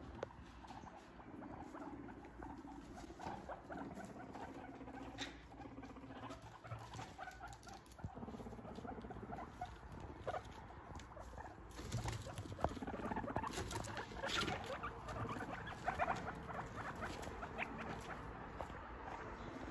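Guinea pigs scurrying and rustling through hay and fleece bedding, with many small scratchy clicks and soft squeaking. The activity grows busier and louder about two-thirds of the way through.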